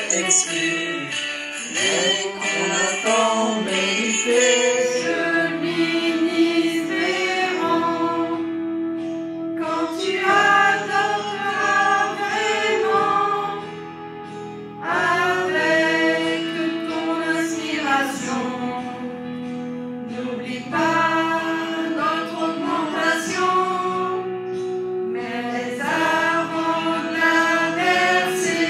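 A small group of men and women singing a song together from lyric sheets, in phrases of a few seconds with short breaks between them.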